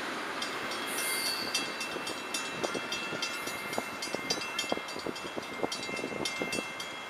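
Railroad grade-crossing bell ringing in rapid, even strikes, about four a second, while the crossing gates rise and the signals still flash. The last rumble of the passing freight train fades out at the start.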